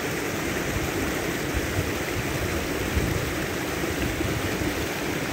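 Shallow rocky stream rushing and splashing over and between boulders, a steady, even rush of white water.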